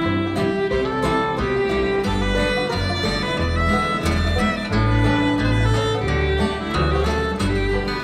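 Old-time string band playing an instrumental intro: fiddle leading the melody over acoustic guitar, banjo and upright bass.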